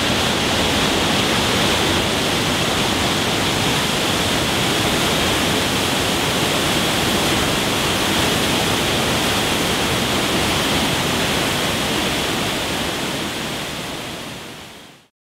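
Waterfall plunging into a rock pool: a loud, steady rush of falling water, fading out over the last few seconds.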